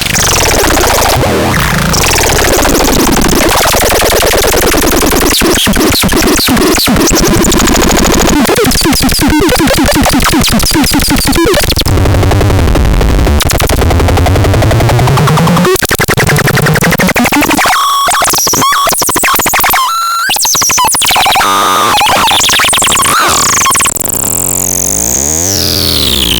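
Harsh electronic synthesizer noise: dense, loud, distorted tones with shifting pitch glides. It briefly drops out twice about two-thirds of the way through, and a long falling sweep comes near the end.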